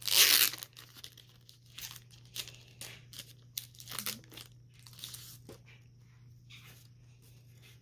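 A foil Pokémon trading-card booster pack torn open with one loud rip, followed by scattered crinkling of the wrapper as the cards are pulled out and handled.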